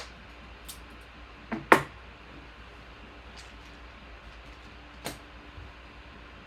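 A few short, light clicks and taps from handling trading cards and card supplies on a table, the loudest a sharp tap just under two seconds in.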